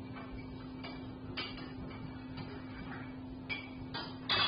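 Irregular sharp knocks and clicks, about six of them, the loudest near the end, over a steady low hum.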